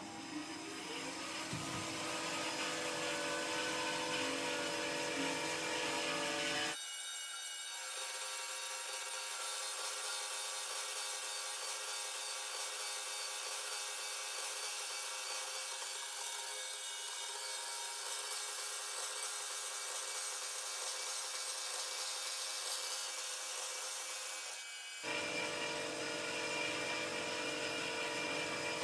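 Tsune TCB-400G automatic band saw running steadily, its blade sawing, with a constant hiss and several steady machine tones. The deep part of the sound cuts out abruptly about seven seconds in and comes back a few seconds before the end.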